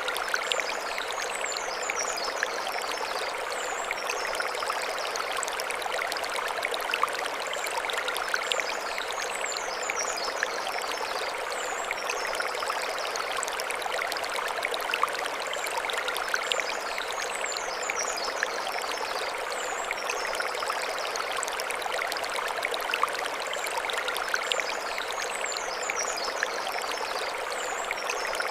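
Mountain stream running steadily over stones, an even rushing and splashing of water. Groups of high chirps come round about every eight seconds above it.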